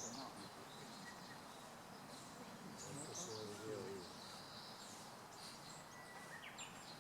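Birds chirping faintly in short, high calls a few times, against steady outdoor background noise.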